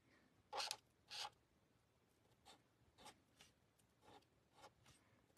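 Faint scratch of a marker tip colouring on cardstock: two short strokes about a second in, then a few faint ticks.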